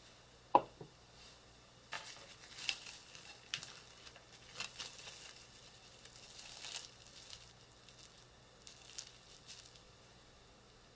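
Plastic cling wrap crinkling in short, irregular bursts as it is peeled off a microwaved pumpkin. A single sharp knock with a short ring comes about half a second in.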